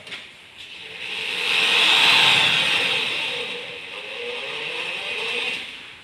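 Corded electric drill running under load as it bores into the aluminium frame of a sliding window. It starts about a second in, is loudest about two seconds in, and stops just before the end.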